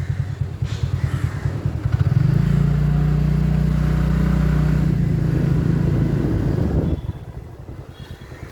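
A motor vehicle engine running close by over a low rumble, steadiest and loudest for about three seconds, then fading away about seven seconds in.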